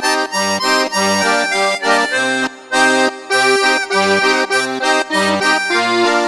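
Upbeat instrumental background music with a bouncing bass line that steps between notes about twice a second.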